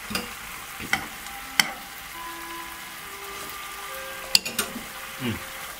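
Tomato sauce simmering and sizzling in a frying pan while a wooden spatula stirs it, with a few sharp taps, about a second in, half a second later, and again past the middle.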